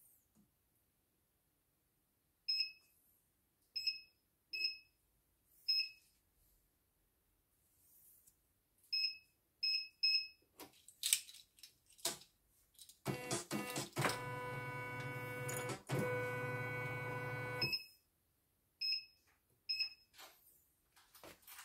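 Computerized embroidery machine beeping with short electronic beeps as its touchscreen is pressed to load a design, a few at a time. After a few clicks, its motors run steadily for about five seconds and then stop, followed by more beeps.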